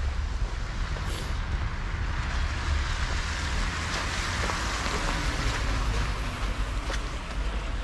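Winter street ambience under a steady low rumble, with a vehicle passing: its tyre noise swells to its loudest midway and then fades. A few faint footsteps in snow click through it.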